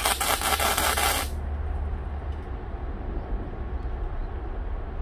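Electric arc welding a short tack on a steel frame: a loud crackling, hissing burst lasting just over a second at the start. A steady low hum runs underneath.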